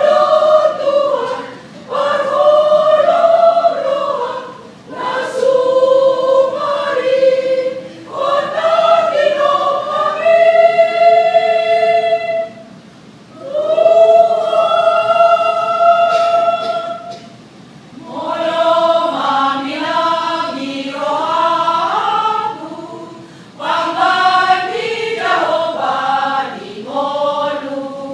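Women's church choir singing, in phrases of a few seconds separated by short breaks, with long held notes around the middle.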